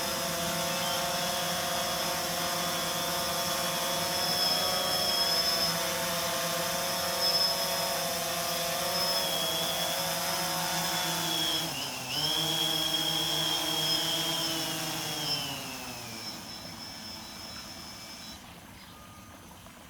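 DJI Phantom 3 4K quadcopter's motors and propellers whining steadily during an auto-land. About twelve seconds in the pitch dips briefly, and from about fifteen seconds the whine falls in pitch and fades as the motors spin down and stop.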